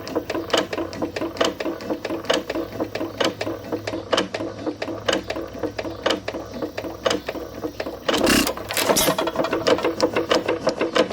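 Detroit Engine Works 4.5 hit-and-miss engine running, its gears clanking, rod knocking and piston pumping in a steady rhythm of sharp clicks. There is a louder burst of noise about eight seconds in.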